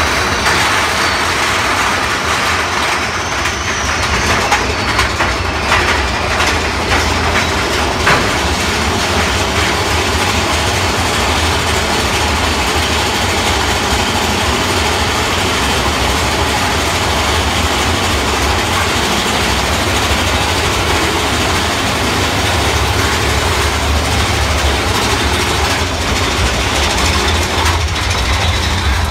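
Big Thunder Mountain Railroad mine-train roller coaster running along its track, heard from a seat on the train: a steady rumble and clatter, with a few sharp clacks in the first several seconds.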